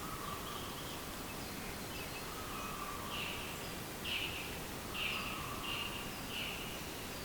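Birds calling: a series of short high notes repeating about once a second and coming closer together toward the end, with a few longer, lower notes in between, over a steady outdoor hiss.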